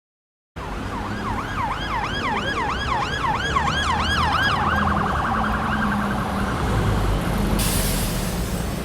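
Electronic emergency-vehicle siren that starts abruptly, sweeping up and down in a quick yelp about two to three times a second, then switching about four seconds later to a much faster warble, over a low vehicle rumble. A hiss comes in near the end.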